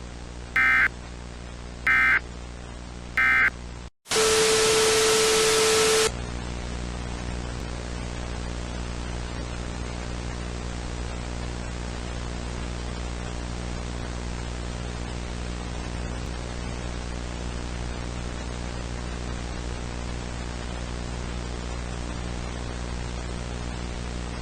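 Three short bursts of Emergency Alert System end-of-message data tones, then a brief dropout and a loud burst of static with a steady tone through it, about two seconds long. After that, steady static hiss over a low hum.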